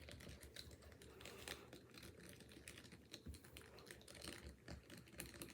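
Faint, rapid, irregular clicking and scraping of a small stirrer against a plastic candy-kit tray, stirring the candy powder into water.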